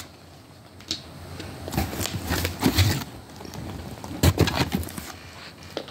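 Nail-product containers being handled and taken out of a box: scattered knocks, clicks and rustling, the sharpest knock about four seconds in.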